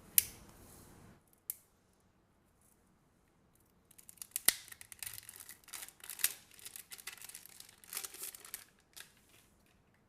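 Clicks and crackling of plastic as a pink salt grinder bottle is opened: two sharp clicks at the start, then a dense run of crackling clicks from about four seconds in to about nine.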